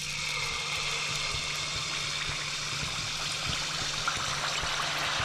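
Malpua batter deep-frying in medium-hot oil in a kadhai as it is poured in, giving a steady sizzle.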